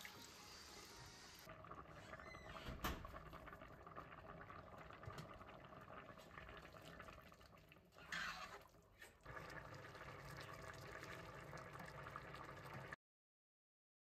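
Faint water pouring into a pot of rice, then a spatula stirring the wet rice, with a single sharp knock about three seconds in.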